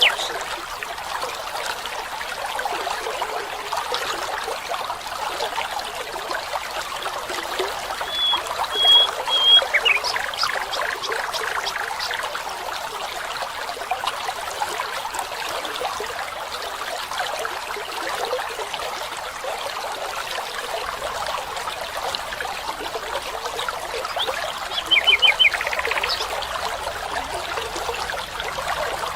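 Water trickling steadily, with a few short, high bird calls: a brief run of notes about eight seconds in and another near the end.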